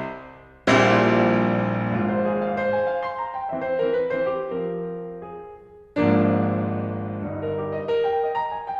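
Solo piano playing: a loud chord struck about two-thirds of a second in rings and slowly fades under quieter single notes, then another loud chord is struck about six seconds in.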